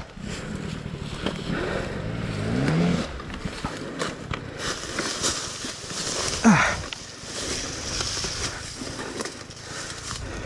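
Enduro dirt bike being worked across a steep slope of dry leaves: leaves crackling and scraping under the wheels and boots, with the engine rising in pitch briefly about two seconds in and a short sharp sound about six seconds in.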